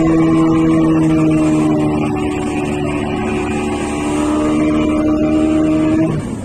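Fishing boat's engine running under way with a steady hum, easing slightly in pitch about two seconds in, over wind and water noise; the hum stops just before the end.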